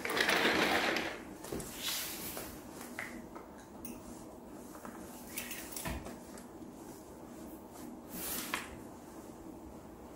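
Clothing rustling and a Louis Vuitton belt being pulled through jeans belt loops and fastened, with small clicks of its metal buckle. A loud rustle in the first second as a shirt brushes close by, then quieter scattered rustles and a low knock about halfway through.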